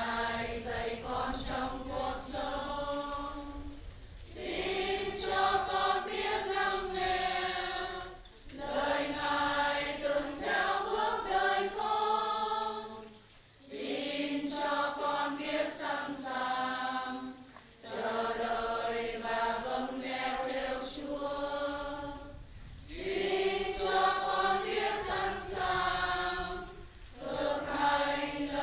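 Choir singing a communion hymn in phrases of about four to five seconds, with short breaks between them.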